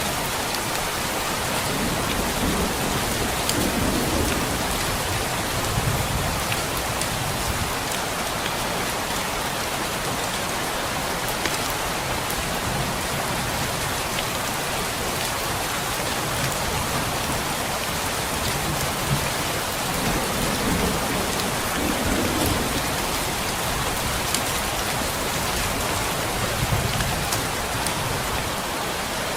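Heavy rain falling steadily, with low rumbles of thunder swelling a few times and scattered sharp ticks.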